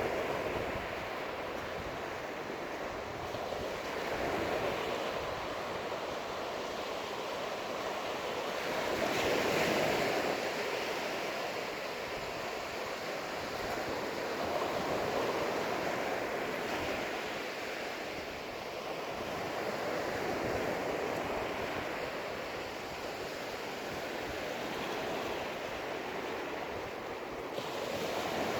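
Ocean surf breaking on a sandy beach, a steady wash that swells and eases every five seconds or so as waves come in.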